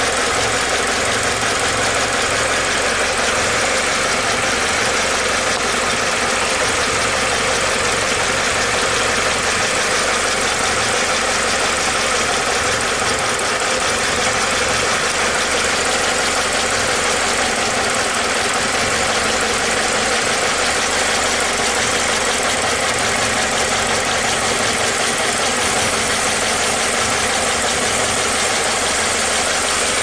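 2008 Pontiac G5's 2.2L Ecotec four-cylinder engine idling steadily, heard close up in the open engine bay. The engine has an intermittent random misfire (code P0300) that makes it idle a bit rough.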